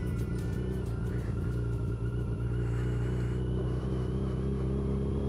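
Yamaha FJR1300's inline-four engine running at a steady, even pitch as the motorcycle rides along, heard from the rider's position.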